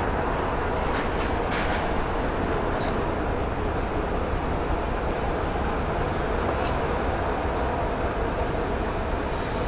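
Steady low rumble of the training ship Kashima's engines and machinery as she gets under way, unchanging throughout.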